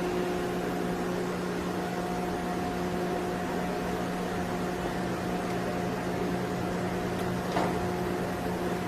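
Steady hum of factory conveyor machinery in a corrugated cardboard plant, with a constant low drone and a few held tones over a noise floor. There is one brief knock about seven and a half seconds in.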